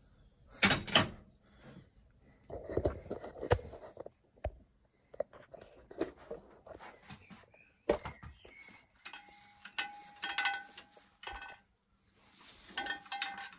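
Metal-on-metal knocks, clicks and rubbing as a Harley-Davidson Road King front fork tube is worked in its triple clamps, with a couple of brief squeaks around the middle and near the end.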